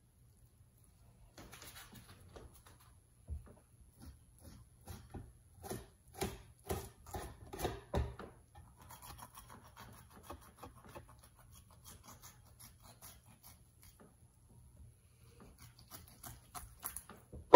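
Kitchen knife filleting a weakfish on a wooden cutting board: a run of light clicks, taps and scrapes as the blade works along the fish, busiest in the first half, then softer scraping. A louder knock comes right at the end.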